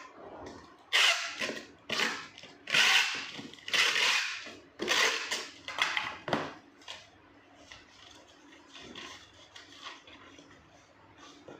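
A run of about six loud rasping scrapes, each under a second, in the first seven seconds, then fainter rubbing: cardboard packaging being handled and worked.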